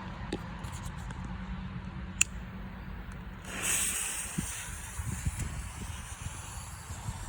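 A firecracker's fuse hissing for about a second, over a steady low rumble, with a single sharp click shortly before.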